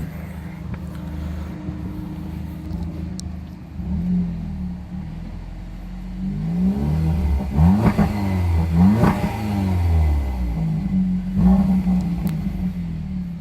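2015 Audi S3's turbocharged 2.0-litre four-cylinder, breathing through a Milltek cat-back sport exhaust, idling and being revved in several short blips. The pitch climbs and falls with each blip, most of them bunched in the middle.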